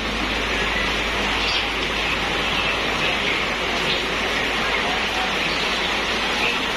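Heavy rain pouring down steadily onto paving.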